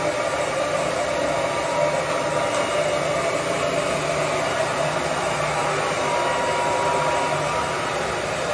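Handheld hair dryer running steadily, blowing air over wet hair.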